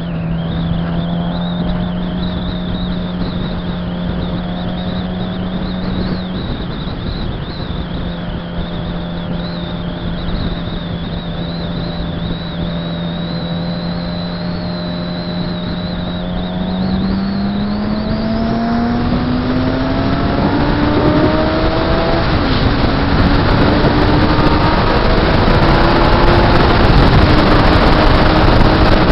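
Suzuki GSX-R 600's inline-four engine heard from on board, running at a steady pitch while cruising, then rising in pitch about two-thirds through as the bike speeds up. Wind rush grows louder with the speed.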